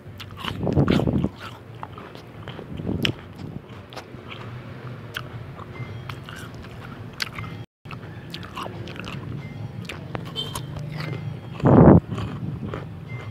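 Close-miked biting and chewing of crunchy raw jicama (singkamas), with wet crunches and clicks and a few louder bites, the loudest near the end.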